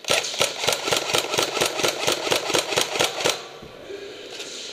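Airsoft gun firing a quick string of about fourteen shots, roughly four a second, for about three seconds, then stopping.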